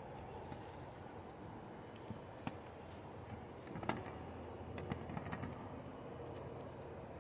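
Kryptonite Keeper 785 chain lock being handled: a few scattered metallic clicks and clinks from the chain and lock, the loudest about four seconds in, over a steady low hum.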